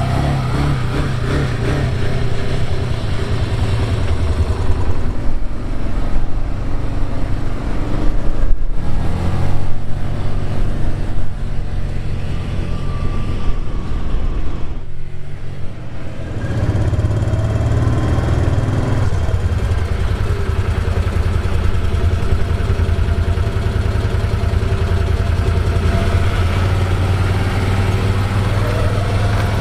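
Can-Am Defender side-by-side's engine running as it drives, uneven and louder in the first half, then steady from about halfway on.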